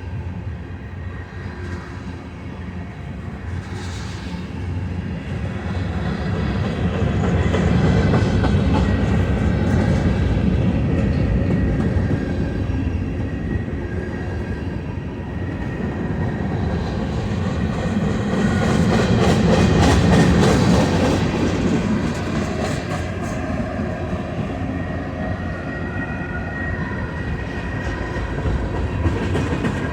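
Freight train cars rolling past at speed, a steady rumble of steel wheels on the rails that swells louder twice, with faint wheel squeal.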